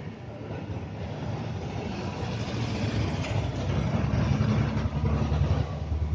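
Low rumble of a passing vehicle that grows louder about halfway through.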